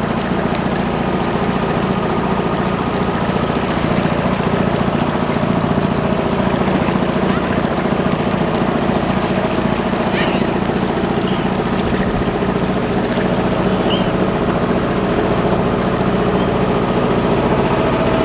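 A motor launch's engine running steadily at cruising speed, a constant low hum, with water washing along the hull.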